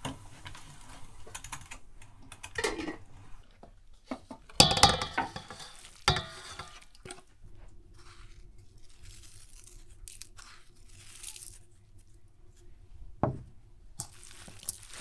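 Intermittent rustling and handling noises of hand food preparation, with a louder burst of rustling about five seconds in and sharp knocks about six and thirteen seconds in.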